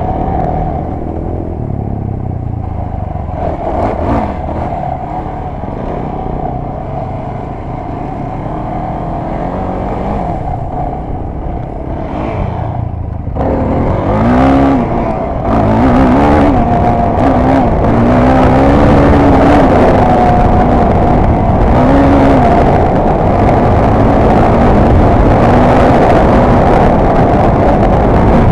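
Off-road trail vehicle's engine running under load at speed, heard from on board. About halfway through it gets louder, its pitch rising and falling as the throttle is worked.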